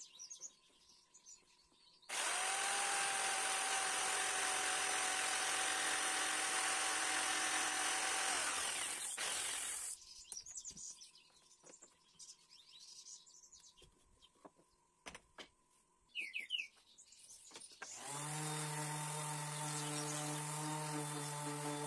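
Corded jigsaw starts about two seconds in and runs for about eight seconds, cutting a thin wooden board, then stops. A few small knocks and a short chirp follow, and near the end a random orbit sander starts and runs with a steady hum.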